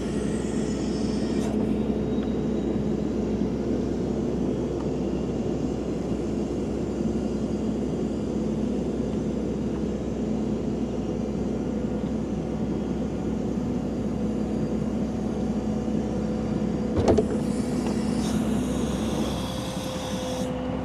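An engine running steadily at a constant speed, with a short knock about 17 seconds in.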